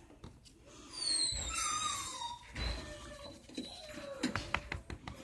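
Domestic cat making a high, squeaky meow that falls in pitch about a second in, then a lower falling call, its odd noises drawn out by being scratched. A few sharp clicks come near the end.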